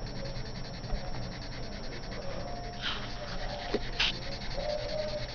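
Black marker rubbing and scratching across paper while filling in a solid black area, with two sharper scratching strokes about three and four seconds in.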